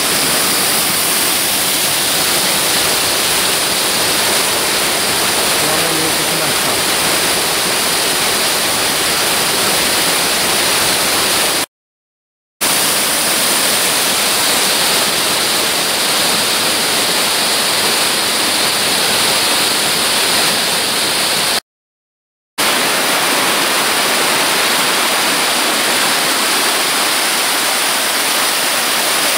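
Mountain stream water rushing and cascading down rock slabs and small falls close by, a loud steady rush. It cuts out to silence twice, briefly, about twelve and twenty-two seconds in.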